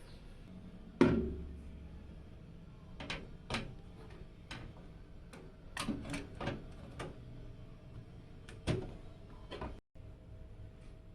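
Computer hardware being handled during a PC build: one heavy knock about a second in, then a string of lighter clicks and taps of parts and panels being fitted.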